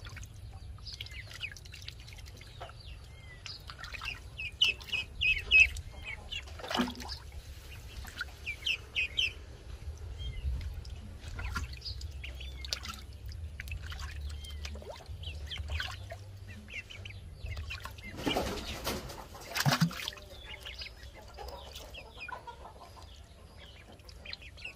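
Ducklings peeping in short high bursts while they paddle and dabble in a water-filled jar, with light splashing throughout. A couple of louder splashes come close together about three-quarters of the way through.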